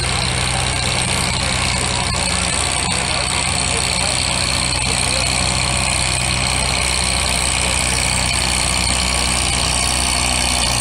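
Antique farm tractor engine idling steadily, a low even engine note that barely changes.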